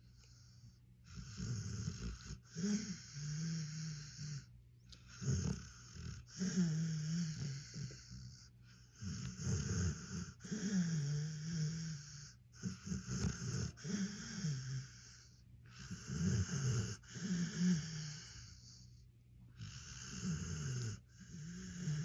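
A sleeping pit bull snoring, with a low snore on each breath in and out. The breaths come every second or two, in a steady rhythm.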